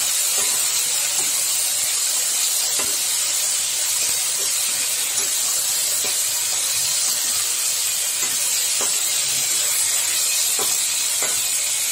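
Brinjal pieces and green leaves sizzling in hot oil in an iron kadai, a steady hiss, with a few short scrapes and clicks of a spatula stirring them.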